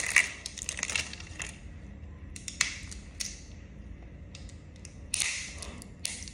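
Plastic Play-Doh Super Cloud tub being pried at, its lid clicking and creaking as it resists opening, with a short scraping burst about five seconds in.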